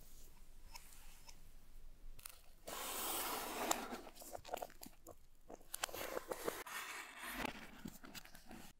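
Cardboard shipping carton being handled and its flaps folded closed: scraping and crinkling with a few taps. It is loudest about three seconds in and again around six seconds.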